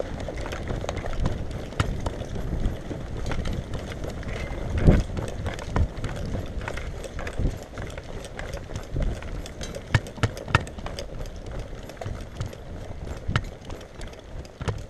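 Footsteps of a person running on a dirt path, an uneven patter of footfalls with scattered clicks and knocks, and one heavier thump about five seconds in.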